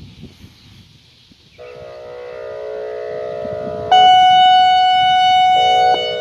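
ASC E-Class EC4 electronic outdoor warning siren sounding its pulse test signal. A chord of steady tones comes in about a second and a half in and swells. About four seconds in, a loud higher tone switches on, holds for about two seconds, then cuts off abruptly, leaving the lower chord fading.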